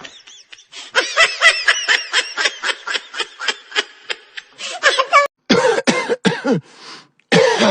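A person laughing in a quick run of high-pitched bursts for about four seconds. This is followed by several louder, separate coughs, each dropping in pitch, about two seconds later.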